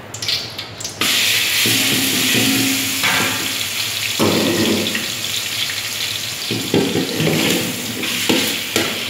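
Marinated sliced pork dropped into hot oil in a metal wok: a loud sizzle starts suddenly about a second in and keeps going while a metal ladle stirs the meat, with a few scrapes and clinks against the pan.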